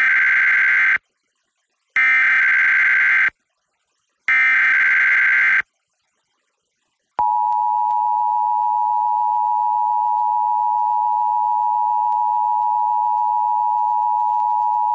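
Emergency Alert System header: three short bursts of SAME digital data tones, a warbling squawk each lasting about a second, then the EAS two-tone attention signal (853 and 960 Hz together) held steadily for about eight seconds and cutting off sharply. This is the opening of an EAS Required Monthly Test broadcast over FM radio.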